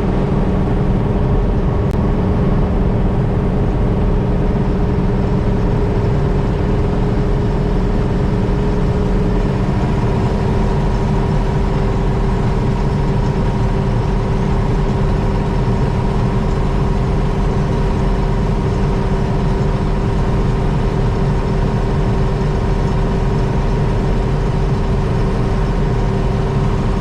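Heavy farm vehicle engine running steadily at working speed, a low drone with a steady whine on top.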